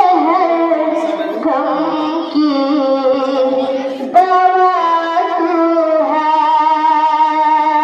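Children's voices singing an Urdu devotional song in long, wavering held notes, the melody moving to a new note every couple of seconds.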